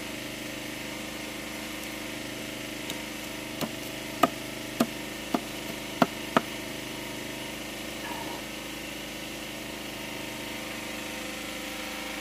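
A large knife blade chops into the base of a sugarcane stalk on a wooden board: about six sharp knocks in quick succession around the middle, over a steady hum.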